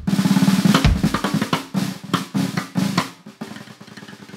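Drumsticks played stick-on-stick over a snare drum, one stick resting on the head and struck by the other: a fast run of clicking strokes in the first second, then spaced single clicks that thin out after about three seconds.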